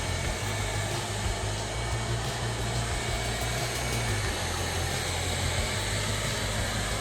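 ILIFE V8s robot vacuum running in its automatic corners mode, giving off a steady motor and suction noise with a low hum.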